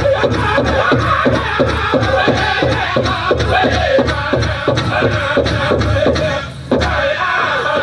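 Powwow drum group singing a Prairie Chicken dance song over a steady big-drum beat, about four beats a second. The drumming and singing break off briefly about six and a half seconds in, then start again.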